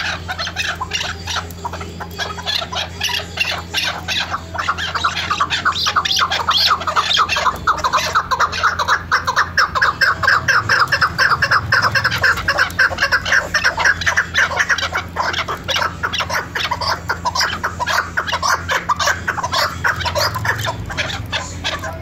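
Chukar partridges calling: a long run of rapid, clucking 'chuk' notes that swells louder about seven seconds in and eases off near the end.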